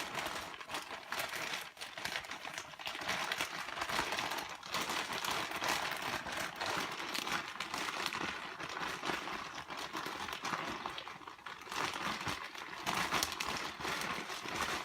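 Crinkly packaging being handled and rustled continuously, with many small crackles, as hands dig out and unwrap a small item.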